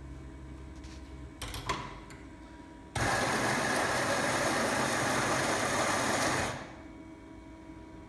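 Compak electric coffee grinder running, grinding beans into the portafilter held in its fork: the motor starts abruptly, runs steadily for about three and a half seconds and winds down quickly. It is preceded by a few light clacks.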